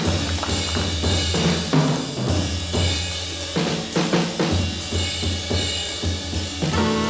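Jazz drum kit played alone in a busy break: snare strokes, bass drum and cymbals. Horns come in right at the end.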